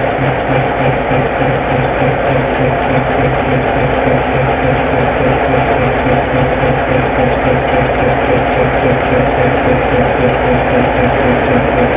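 Diesel engine of a Whitcomb 65-ton diesel-electric locomotive running steadily, with a regular low beat of about four pulses a second.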